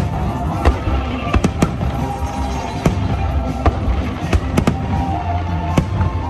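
Fireworks exploding in a display: about ten sharp bangs at irregular intervals over a continuous low rumble, with music playing underneath.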